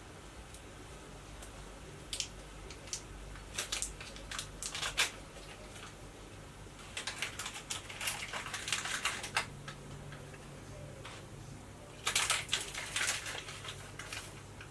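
Small plastic measuring spoon and foil yeast sachet being handled while yeast is measured out: light clicks and crinkling in three short clusters.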